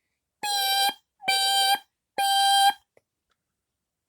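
Kidde ionization smoke alarm sounding on its test button: three loud half-second beeps, then a pause, in the standard three-beep evacuation pattern. The alarm is working.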